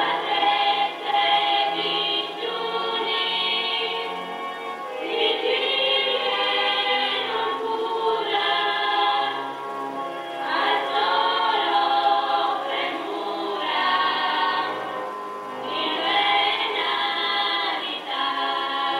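A choir singing in long, sustained phrases.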